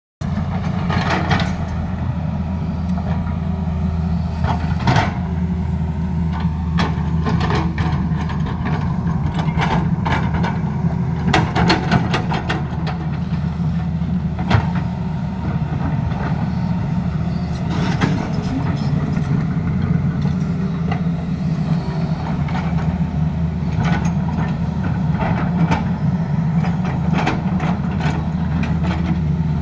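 Tata Hitachi tracked excavator's diesel engine running steadily under load, with frequent clanks and knocks from the bucket and tracks working stony ground.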